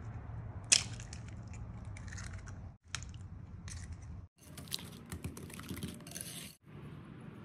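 An egg cracked against the rim of a mixing bowl with a sharp crack about a second in, and another crack near three seconds. This is followed by a wire whisk beating eggs into creamed butter and sugar, rapid clicking of the wires against the bowl.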